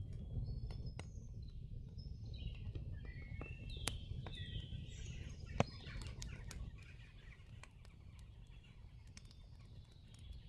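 Recorded campfire ambience: a wood fire crackling with scattered sharp pops, one louder pop about halfway through, and birds chirping over it, all above a steady low rumble.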